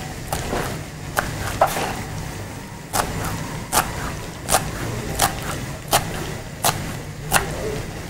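Kitchen knife chopping fresh coriander on a cutting board: a few scattered strokes at first, then a steady chop about every three-quarters of a second, over a low steady hum.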